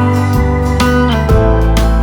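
Background music led by guitar, with held notes and a steady bass line changing every half second or so.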